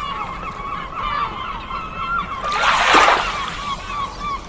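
A gull calling: a rapid series of short, repeated honking notes, about three a second. A brief loud rush of noise rises over the calls about three seconds in.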